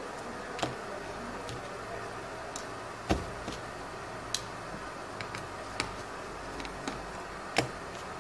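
Scattered small, sharp clicks and taps of a precision screwdriver, tiny screws and the metal connector plate being handled on an opened iPhone 5. The loudest click comes about three seconds in and another near the end, over a steady hiss.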